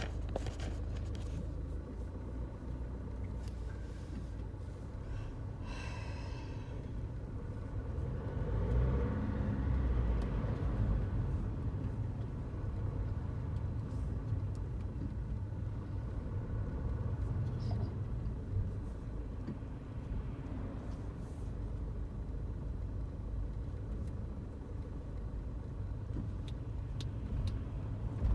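Car cabin noise while driving: a steady low rumble of road and engine, swelling for a few seconds a third of the way through, with a few faint clicks and a short pitched sound about six seconds in.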